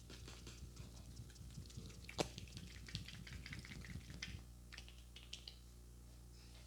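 Light, rapid, irregular patting and tapping of hands on the head during a head massage, with one sharper snap a little over two seconds in; the tapping stops near the end.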